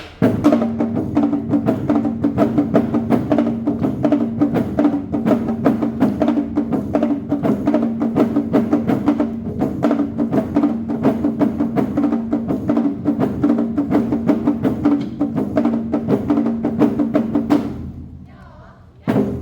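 Awa Odori festival band music: rapid, even percussion strokes over steady held notes from pitched instruments, fading out near the end.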